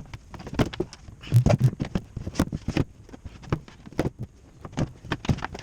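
Irregular knocks, taps and clatter of wooden cabinet parts and hand tools being handled during cabinet assembly, with a few heavier knocks about a second and a half in.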